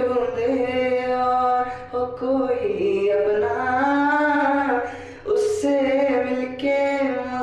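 A man singing solo without accompaniment, holding long notes that bend and slide in pitch, with short breaks about two and five seconds in.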